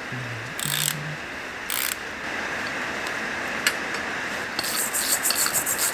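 Hand ratchet working a fastener on a turbocharger. A couple of short scrapes of tool on metal come first, then fast, dense ratchet clicking starts near the end.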